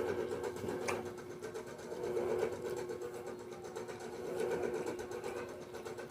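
Steady whirring hum like a small electric motor, with a single short click about a second in.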